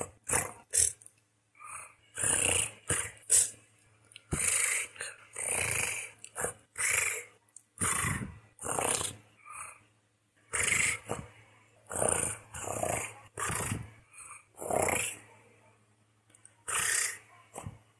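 A person's voice speaking a constructed language made of cat-like purring: throaty purrs and rolled, growl-like sounds in many short bursts with brief pauses between.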